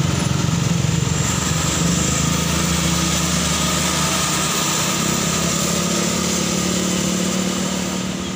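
Diesel engines of a light dump truck and then a bus pulling up a steep grade close by, a steady low drone.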